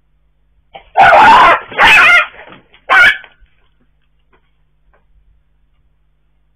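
A dog yelping loudly three times in quick succession, the first cry the longest: the distress cries of a dog being attacked by a black leopard.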